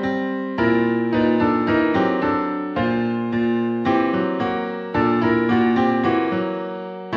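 Background music played on a piano-like keyboard: chords and a melody of struck notes that ring and fade, with new strong attacks every second or two.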